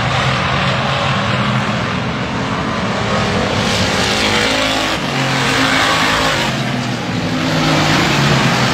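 A pack of stock cars racing around an oval track, their engines running hard and steadily, with louder swells as cars pass close by, once about halfway through and again near the end.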